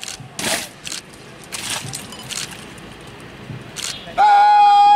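A rank of police with rifles doing parade drill: several sharp slaps and thuds in unison as the rifles are handled, then, about four seconds in, a drill commander's long drawn-out shouted command held on one steady pitch, the loudest thing here.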